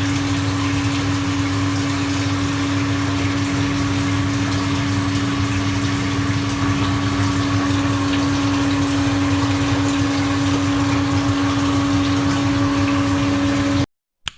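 A pump running steadily: a strong constant hum with a rushing, water-like noise over it, cutting off suddenly near the end.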